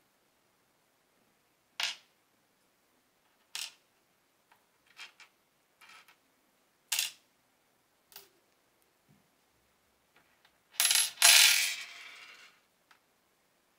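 Small brass lighter parts set down one by one on a tabletop, making a series of separate light metallic clicks and taps. About eleven seconds in comes a louder clatter of several small metal pieces landing together, with a brief high metallic ring.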